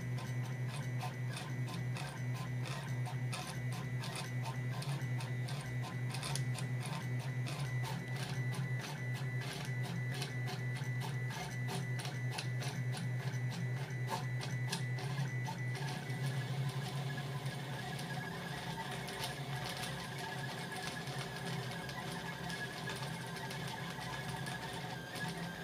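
3D printer converted to a pen plotter running: stepper motors humming and whirring as they drive the pen carriage, with many quick ticks as the pen lifts and drops on the paper. The pattern of the motor sounds changes about 16 seconds in.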